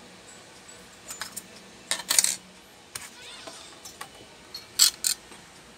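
Clinks and rattles of small hard objects being handled, in short clusters: a light one about a second in, the loudest around two seconds, and another near five seconds.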